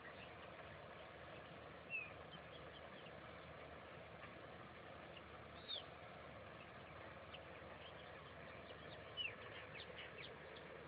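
Faint birds chirping over a steady background hiss: short high calls about two seconds in, again near the middle, and a quick run of several near the end.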